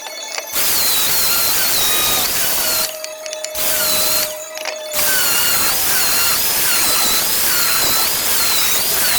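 Handheld electric power tool, such as a sander or grinder, working on the axe. It runs in three stretches, stopping briefly twice, with a wavering whine riding on the noise.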